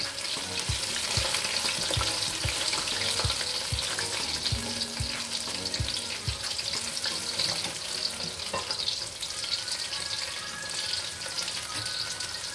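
Besan-battered chicken and vegetable skewers deep-frying in hot oil at medium-low heat: a steady, dense crackling sizzle. A few soft low thumps come in the first half.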